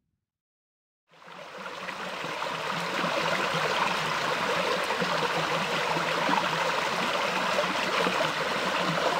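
Shallow woodland brook running over a stony bed, a steady babble of water that fades in about a second in.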